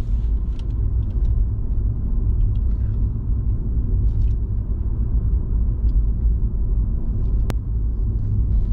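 Steady low rumble of a car driving, with a single sharp click about seven and a half seconds in.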